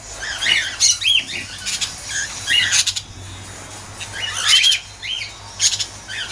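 A flock of cockatiels in an aviary calling: repeated short chirps and rising whistled calls, with loud shrill squawks now and then.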